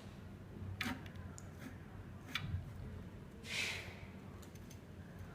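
A few sharp clicks and knocks from the LCD glue remover machine's handle and parts being handled, over a low steady hum, with a short hiss about three and a half seconds in.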